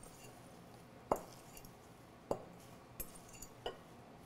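Utensil clinking against a glass mixing bowl while a salad of arugula is tossed: four or five separate clinks with a short ring, about one a second, the first the loudest.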